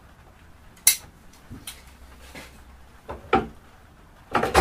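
Caulking gun and tools handled on a wooden workbench while gluing: a sharp click about a second in, a few softer clicks, then a louder knock near the end.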